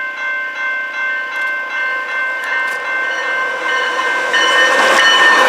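A bell ringing steadily, about two to three strokes a second, as a CPKC train approaches. The train's wheel and rail noise grows and becomes loud about four seconds in as it arrives.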